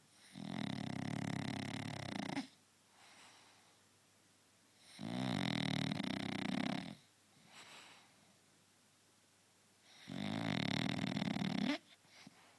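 A French Bulldog snoring in its sleep: three loud, rasping snores of about two seconds each, coming roughly every five seconds, with faint breaths between them.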